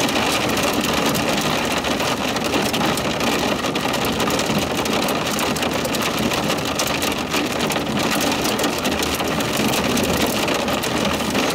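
Rain hitting a vehicle's windshield and body: a steady dense hiss of many small drop ticks, with a low steady hum from the vehicle underneath.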